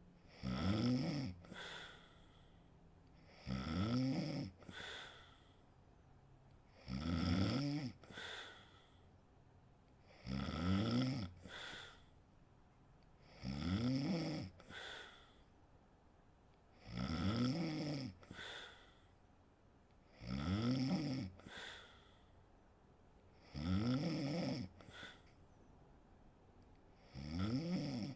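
A sleeping woman snoring steadily, about one snore every three and a half seconds. Each snore lasts about a second, rising and then falling in pitch, and is followed by a shorter, fainter breath.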